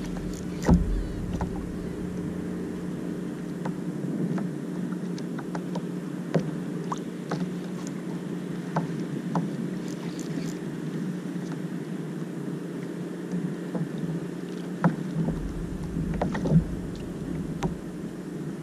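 Scattered small clicks and knocks from a spinning rod and reel being jerked and handled in a plastic sit-on-top kayak, with a few louder thumps about a second in and near the end, over a steady low hum and water around the hull.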